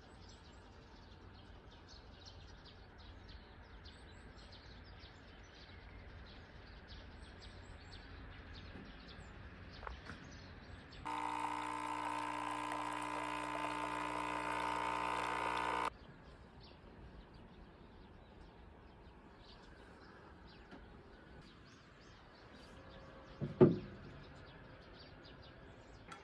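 Small birds chirping sparsely over a low, even background. About eleven seconds in, a coffee machine runs for about five seconds with a loud steady hum of its pump while coffee pours into a mug, then stops abruptly. Near the end, a single sharp knock.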